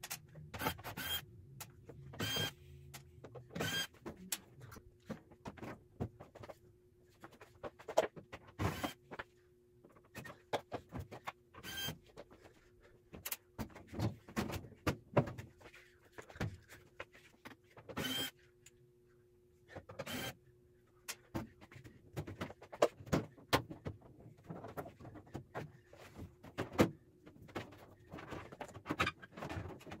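Cordless drill/driver running in short bursts as it backs out the quarter-inch screws around the microwave's sheet-metal housing, with sharp metallic clicks and clinks of screws and handling between the bursts, some of them ringing briefly.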